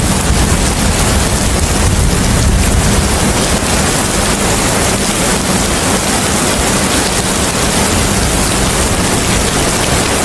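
Steady rain and wind: an even hiss across all pitches with a low rumble beneath that eases a little a few seconds in.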